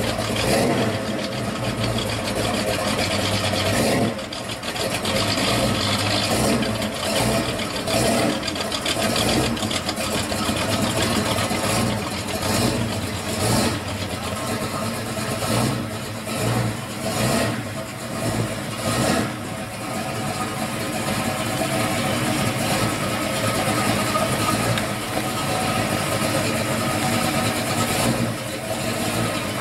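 1968 Dodge Dart GTS's V8 engine running as the car is driven at low speed, with occasional revs.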